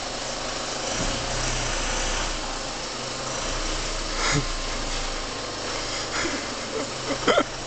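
Citroën Relay HDi diesel van engine idling steadily, with a couple of brief sounds over it, the loudest near the end.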